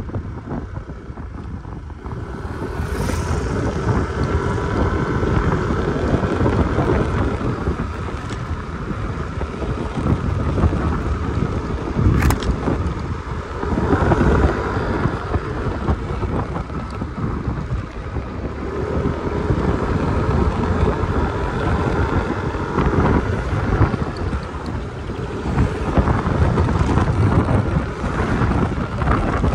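Wind rushing over the microphone on a moving Yamaha motor scooter, with the scooter's engine running underneath; the rush swells and eases, and there is a single sharp tick about twelve seconds in.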